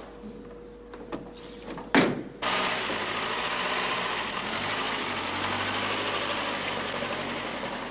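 A sharp knock about two seconds in, then a tow truck's engine starts and runs steadily as the truck pulls away.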